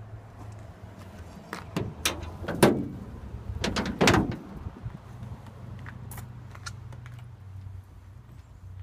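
The hood of a 1979 Dodge W200 Power Wagon being unlatched and swung open, making a few sharp metallic clunks and clacks about two seconds in and again about four seconds in, over a steady low hum.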